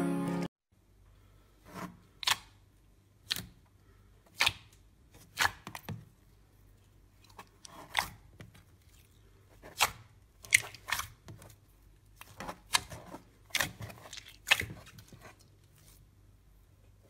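Hands squishing and pressing slime, making sharp sticky pops and squelching clicks at an irregular pace of one or two a second, with quiet between them.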